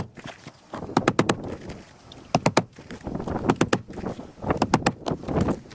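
Hammer driving roofing nails into asphalt shingles: four quick groups of three or four sharp taps, about a second apart, with scraping and shuffling between them.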